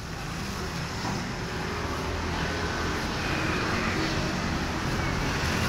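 Plastic carrier bags rustling and crinkling as hands pull them open, over a steady low vehicle engine hum that grows slowly louder.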